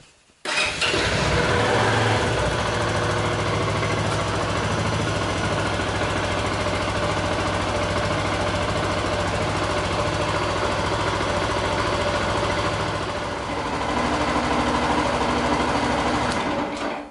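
Zontes U1 125's single-cylinder four-stroke engine starting about half a second in, then running steadily at idle as it is warmed up from cold. It grows slightly louder near the end and cuts off just before the end.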